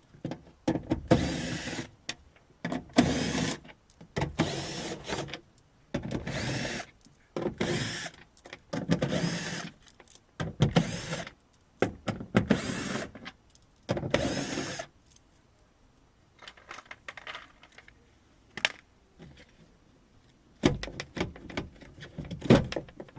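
Repeated bursts of scraping and rattling, each under a second long and about one every second and a half, as the inner door panel of a car is worked loose. The sound thins to a few clicks and then picks up again near the end.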